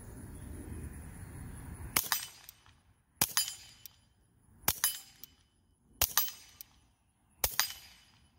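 Five suppressed shots from a Ruger Mark IV 22/45 Tactical .22 pistol firing subsonic ammunition, spaced about 1.2 to 1.5 seconds apart. Each is a sharp report with a short tail.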